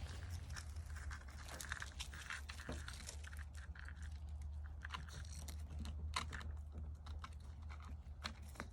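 Irregular crunching and crackling of snow underfoot, with a low steady rumble underneath.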